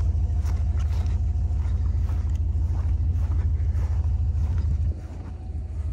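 A vehicle engine idling, a low steady rumble that drops sharply in level about five seconds in.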